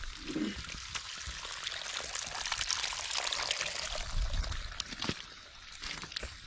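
Water pouring and splashing, growing louder toward the middle and easing off near the end, with a few sharp splashes or knocks.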